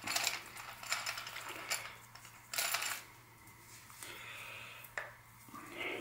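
Light metal clinks and taps of a bearing-extraction tool being fitted to a Hope bottom bracket cup, with a half-second scrape about two and a half seconds in.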